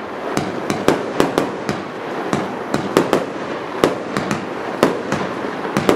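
Fireworks batteries firing a rapid string of aerial bursts: sharp bangs at an uneven two or three a second, with a continuous crackle of burning stars between them.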